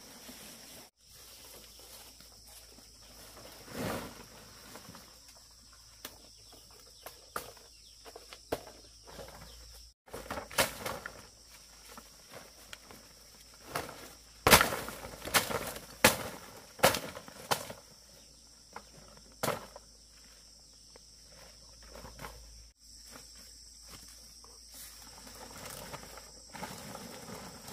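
Irregular sharp snaps and rustling in undergrowth, densest about halfway through, over a steady high insect drone.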